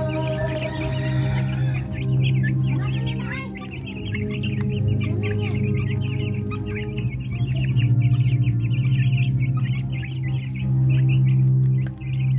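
A flock of young chicks peeping constantly and densely, many short high chirps overlapping. A steady low background music track runs underneath.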